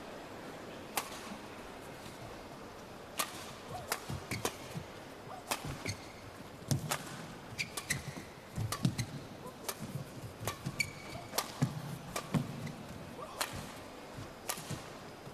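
Badminton rally: sharp racket hits on the shuttlecock, roughly one every second, with dull footfalls and a few short shoe squeaks on the court.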